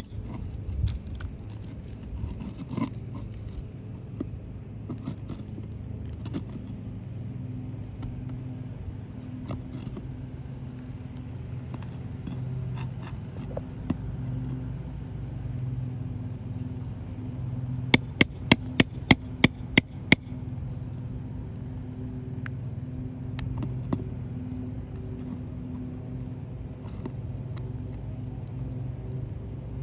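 Flat steel pry bar scraping and clicking under three-tab asphalt shingles as it is worked in to break the seal and free the roofing nails. About eighteen seconds in comes a quick run of about eight sharp metal taps, about four a second, as a hammer strikes the bar. A steady low hum runs underneath.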